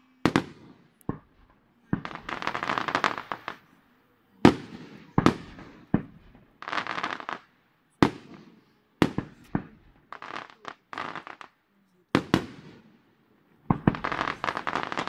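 Aerial firework shells bursting: about a dozen sharp bangs at uneven intervals, with longer stretches of dense crackle in between.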